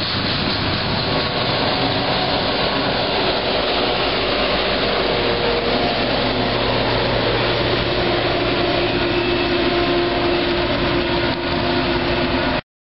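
Double-stack freight train passing close by: a steady rumble and clatter of wheels on rail, with Union Pacific diesel locomotives droning past from about a third of the way in. The sound cuts off abruptly near the end.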